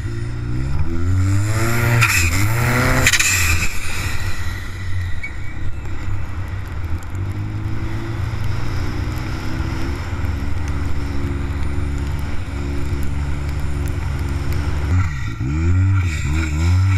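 Arctic Cat ProClimb M 1100 Turbo snowmobile's turbocharged four-stroke engine running under way through a free-flowing aftermarket exhaust and intake. The revs drop and climb back about two seconds in, with a short rush of noise, then run steadily before dipping and climbing again near the end.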